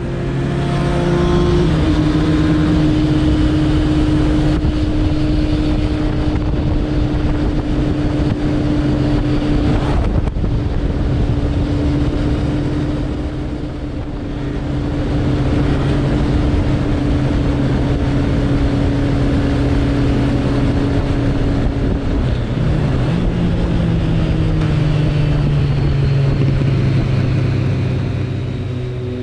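Suzuki Bandit 1200's inline-four engine running at steady cruising revs, heard from the rider's position with wind rushing over the microphone. The engine note steps slightly about a second in and shifts again past twenty seconds, and dips in loudness around the middle.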